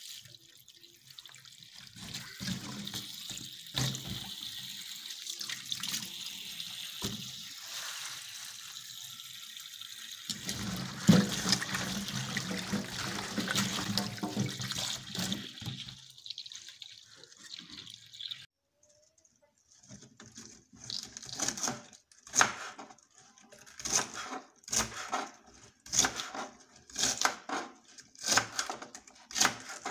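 Tap water running into a stainless steel sink as pumpkin stems are rinsed and rubbed by hand, the splashing louder and fuller for a few seconds in the middle. After a short silence about two-thirds through, a knife chopping the hollow pumpkin stems on a plastic cutting board, in a steady run of short cuts, roughly one or two a second.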